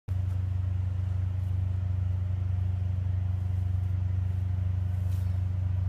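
Engine idling with a steady, unchanging low drone.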